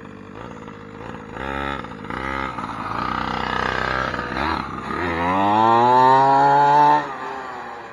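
1/5-scale Primal RC Raminator monster truck's two-stroke gas engine: two short throttle blips, then revving up as the truck accelerates away, its pitch climbing steadily into a long, loud, high whine at full throttle that cuts off abruptly near the end.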